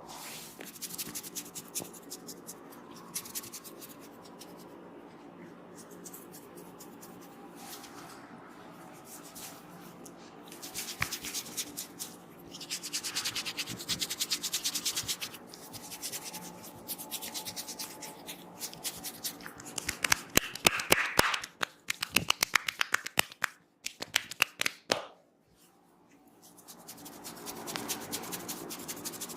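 Hands rubbing and scratching through hair and over the scalp during a head massage. A quick run of fine scratching strokes comes about halfway in, then a string of loud, sharp clicking snaps a little later, before the rubbing resumes after a brief pause.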